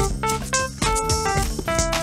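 Instrumental jazzy funk hip-hop beat: a drum-kit groove under a run of melodic instrument notes.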